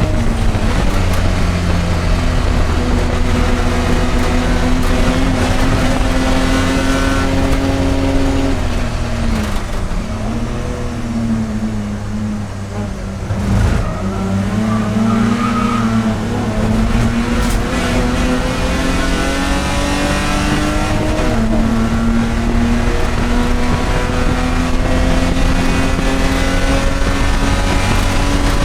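Race car engine heard onboard at full effort, pitch rising slowly through a long pull. About nine seconds in it drops in pitch as the car slows for a corner, with a short loud jolt just before halfway, then climbs again steadily under acceleration.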